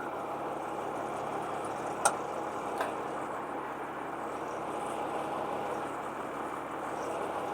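Crane truck's engine idling steadily at low idle, turned down so the PTO can be engaged. Two short sharp clicks come about two seconds in, less than a second apart.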